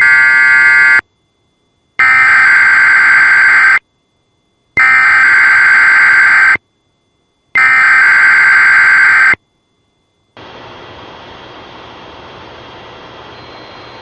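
NOAA Weather Radio test signal: the SAME digital header, harsh electronic data screeches in four bursts, the first about a second long and the next three nearly two seconds each, with short silences between. From about ten seconds in, a steady, quieter radio hiss follows.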